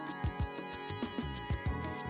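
Background music with a steady beat, plucked string and percussion instruments.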